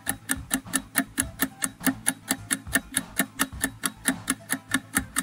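Clock-ticking sound effect of a quiz countdown timer: a steady, even tick about four times a second.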